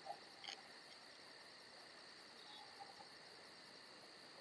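Near silence: faint background tone with a steady high-pitched hiss and a faint, rapid, even pulsing very high up.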